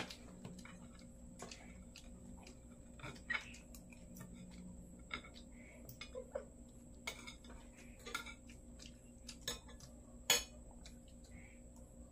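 Metal spoons and forks clinking and scraping against ceramic plates as people eat, in scattered irregular clicks, the sharpest about ten seconds in.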